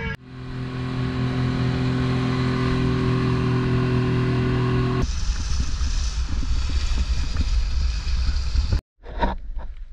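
Boat's outboard motor running under way at a steady speed, a constant hum with a clear pitch. About five seconds in it gives way to a rougher, pitchless rushing noise, which cuts off abruptly shortly before the end.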